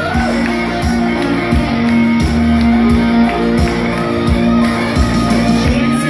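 Country-pop karaoke backing track playing loud, with a steady beat and long held notes.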